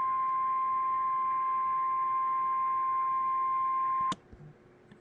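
Emergency Alert System attention signal: the single steady 1050 Hz warning tone used on NOAA Weather Radio to announce a warning message. It cuts off abruptly with a click about four seconds in, leaving faint hiss.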